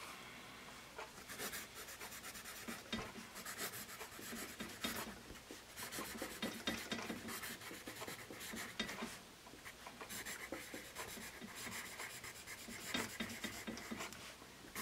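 Graphite of a Paper Mate Mirado Black Warrior #2/HB pencil scratching across paper in quick cursive strokes, faint and in short runs with brief pauses between words.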